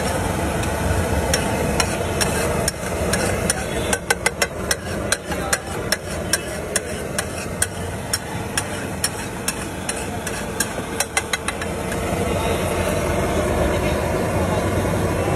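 Metal spatula clattering and scraping on a large flat street-food griddle: a quick, irregular run of sharp clicks and knocks from about four seconds in until near the last few seconds, over steady street noise.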